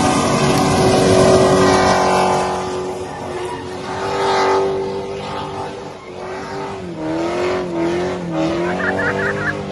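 LS1 V8 in a VP Commodore held at high revs through a burnout, with the rear tyres spinning and screeching on the road. The engine and tyre noise are loudest in the first two seconds. About seven seconds in, the revs dip and waver as the car skids around.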